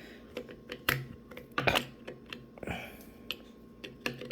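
Small parts of a 1995 Honda Del Sol light switch clicking and tapping as it is handled and fitted back together: about five sharp clicks, with a brief scrape a little before the end.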